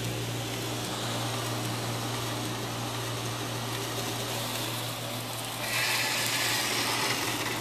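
A 2x72 knife-making belt grinder running at slow speed in reverse: a steady motor hum under the hiss of the abrasive belt over its wheels. About six seconds in, the hiss grows louder for a couple of seconds.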